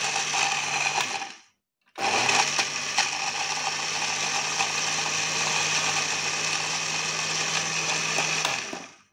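Small electric blender's glass grinding jar running, milling a dry mix of salt and chillies into a fine powder. It stops about a second in, starts again half a second later, runs steadily, and winds down near the end.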